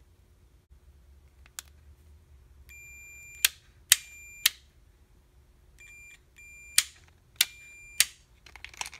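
A digital multimeter's continuity beeper sounds about five times in short, steady, high beeps, each telling of a closed circuit through the Power Wheels gear-shifter switch contacts. The beeps are broken up by sharp clicks, the loudest sounds, as the switch is flipped from position to position.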